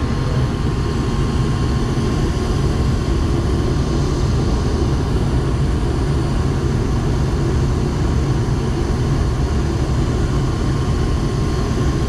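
Payne gas furnace running with its burners firing: a steady low rumble, with a faint steady tone above it.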